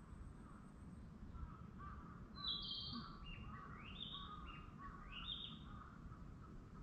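Wild birds calling: a loud high call about two and a half seconds in, then three calls that each rise in pitch, over a steady background of lower chirping.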